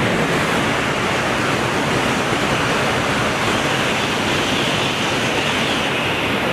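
A steady, even rush of spraying water washing a muddy toy. It cuts off abruptly at the end.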